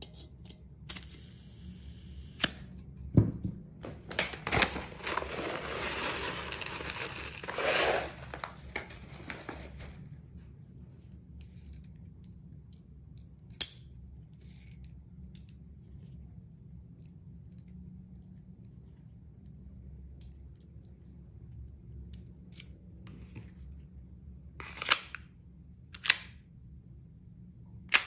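Green gas hissing as an airsoft gas-blowback pistol magazine is charged from a can, with a few clicks between the hisses. Then small scattered ticks of the magazine being handled, and near the end three sharp clacks of the magazine and slide of the TTI TP22 pistol being worked.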